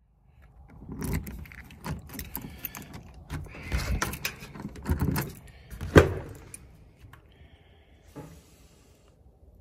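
A door being unlocked and opened: a bunch of keys jangling as the key works in a doorknob lock, the lock and knob clicking, with one sharp click about six seconds in as the latch lets go.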